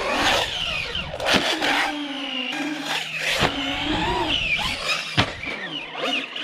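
An RC car's electric motor whining up and down in pitch as it is driven hard. Three sharp knocks of impacts or landings sound about two seconds apart, the last one the loudest.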